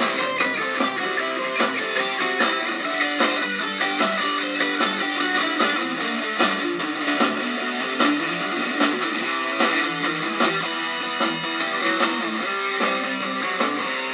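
Cort X6 electric guitar played through a Zoom G1Xon multi-effects pedal: chords and notes picked in a steady rhythm, with a sharp attack on each strum.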